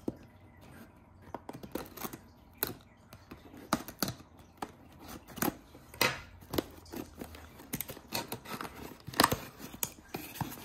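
Cardboard product box being opened by hand: a run of irregular clicks, scrapes and tearing of tape and cardboard.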